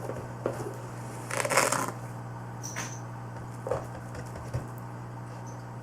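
A teaspoon scooping and shaking borax powder: a gritty scrape about a second and a half in, with a few light clicks and taps, over a steady low hum.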